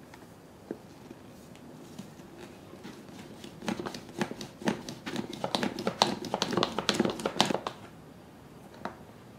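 Plastic rabbit-shaped lid of a Takara Tomy Kurunde Korokoro Odango Party toy dango maker clicking and knocking against its base as it is pushed back and forth, rolling a log of rice-flour dough into balls. A dense, uneven run of plastic clicks starts about four seconds in and lasts about four seconds.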